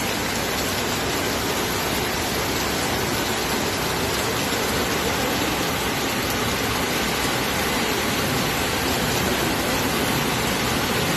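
Steady rush of heavy rain and floodwater running through a street, an even, unbroken wash of water noise with no let-up.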